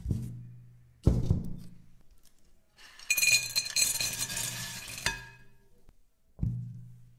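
Broken dry biscuits poured from a plate into a glass bowl: about two seconds of dense rattling and clinking against the glass, ending in a sharp click. Before it come two thuds with a low ring as a plate is set down on a wooden table, and near the end another thud as a banana is laid on a bamboo cutting board.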